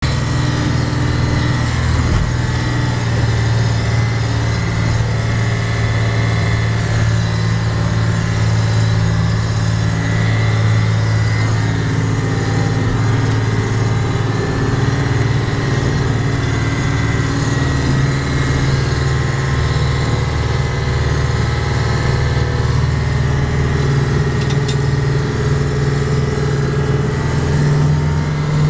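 Yamaha UF-30 boat's engine running steadily under way, a constant low drone heard inside the wheelhouse; its tone shifts slightly a little past halfway.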